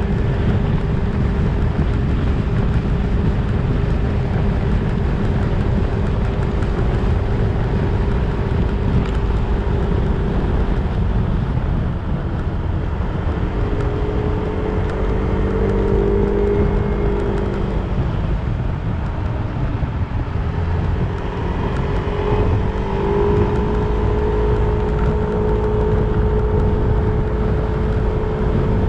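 A 2022 Yamaha Zuma 125 scooter's single-cylinder four-stroke engine running while riding, its steady drone fading away twice and picking back up. Heavy wind rumble on the microphone runs underneath.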